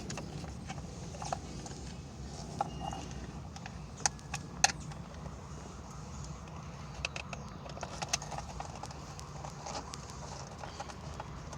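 Scattered light clicks and knocks of hand tools and plastic and metal parts being worked loose while dismantling a car's steering wheel assembly, with a few sharper knocks about four seconds in, over a steady low hum.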